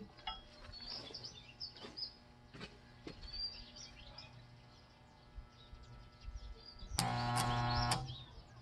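Small birds chirping and twittering, with a few faint clicks. Near the end a loud, steady electric buzz lasts about a second, then cuts off sharply.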